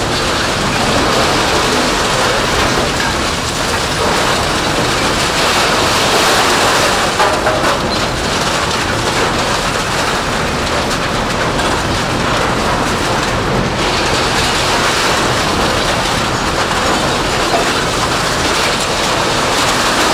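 Industrial scrap-metal shredder running under load: a loud, unbroken din of scrap metal clattering and grinding as it is torn apart.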